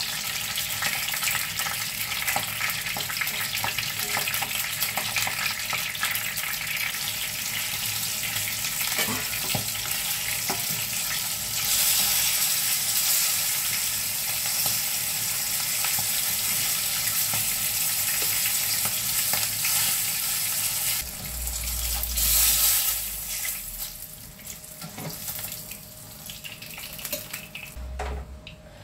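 Hot oil sizzling steadily in a frying pan around stuffed bell pepper halves, with metal tongs clicking against the pan as pieces are turned and lifted out. The sizzle drops off sharply near the end as the last pieces come out of the pan.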